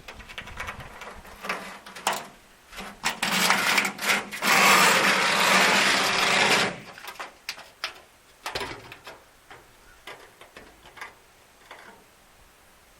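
Pressure washer spray hitting corrugated barn tin in bursts: short spurts build to one loud, steady blast of about two seconds near the middle, then broken, scattered spurts.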